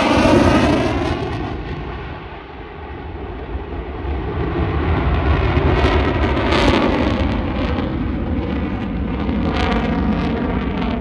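Fighter jet's engine roaring as it flies past, the pitch sweeping down just after the start. The level dips briefly, then a deep rumbling roar builds as the jet draws away.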